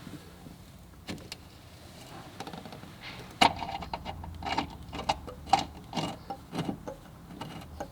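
Thread tap being worked by hand into a roll-bar mounting hole. Sharp clicks and knocks from the tap handle and the tool, starting about halfway through and coming roughly twice a second.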